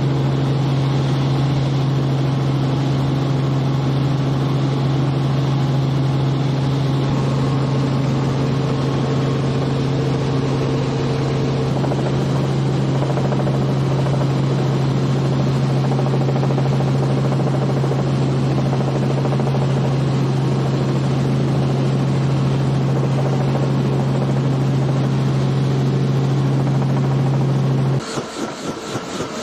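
Robinson R44 helicopter in flight heard from inside the cabin: a loud, steady drone with a strong low hum. About a second before the end it cuts abruptly to a quieter, evenly pulsing sound.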